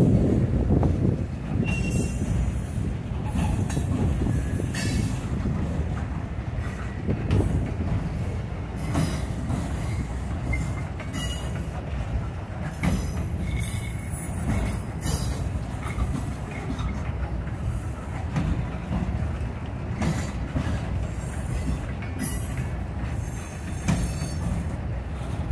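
Norfolk Southern freight train's boxcars rolling past at close range: a steady low rumble of steel wheels on rail, broken by recurring clanks and a few brief high wheel squeals.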